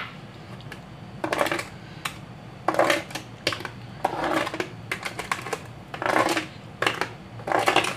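A steel spoon stirring a metal saucepan of kheer, in about seven irregular scraping, crunching strokes. The crunch is the 'kar kar' of caramel setting hard in the cool milk and grating against the spoon and pan.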